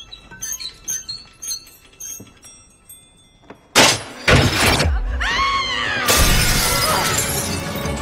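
A large iron-and-crystal chandelier gives off light tinkling as it is unscrewed, then falls and smashes with a sudden loud crash of shattering glass and metal. About a second later a high wavering sound rises and falls, then breaking glass and debris keep clattering loudly.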